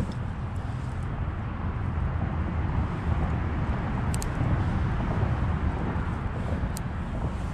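Wind buffeting the camera microphone: a steady, fluctuating low rumble, with a couple of faint short clicks about four and seven seconds in.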